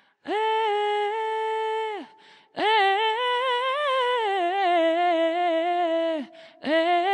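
Synthesizer V virtual singer taking the upper voice of a 14th-century Italian madrigal in a wordless melisma. A held note comes first, then, after a short breath, a long run of quick small steps that slowly sinks in pitch, and a new phrase begins near the end.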